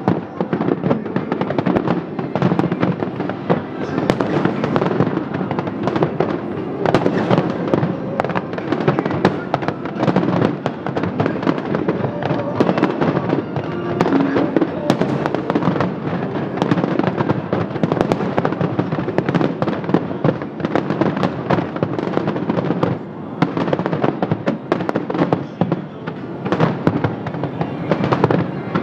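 Fireworks display going off in a rapid, continuous barrage of bangs and crackles.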